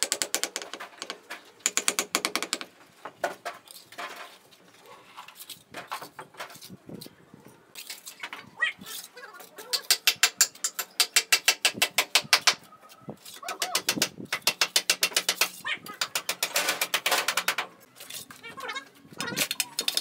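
Bricklaying work: rapid runs of sharp taps, about seven a second, as bricks are tapped down into the mortar bed, with quieter scraping of mortar between the runs. The longest and loudest run comes about halfway through.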